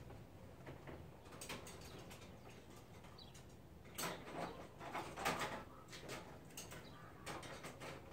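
Faint, scattered clicks and scrapes of hand tools prying at the plastic push-pin fasteners along the top of a Jeep Wrangler JK grille, busiest from about four to five and a half seconds in.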